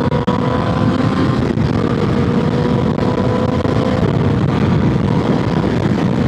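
Motorcycle engine running at a steady cruise, with a dense rush of wind and road noise.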